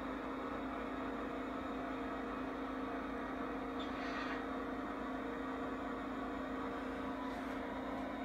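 O gauge model passenger cars rolling past on three-rail track, a steady hum and rumble of metal wheels on the rails, with a brief faint hiss about four seconds in.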